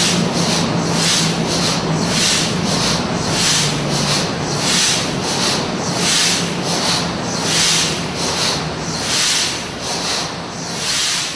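1932 Burmeister & Wain two-stroke diesel engine running, its slow strokes heard as a steady rhythm of hissing, chuffing beats a little under two a second. A low hum underneath fades out in the second half.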